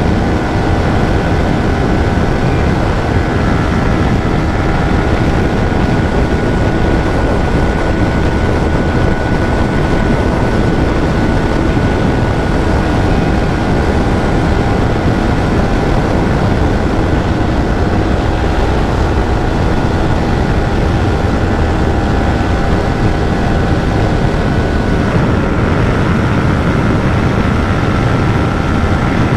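Yamaha R15's single-cylinder engine held near full throttle in sixth gear at around its top speed, a steady high engine note with heavy wind rush over the microphone. The bike is struggling to climb from about 137 toward 140 km/h.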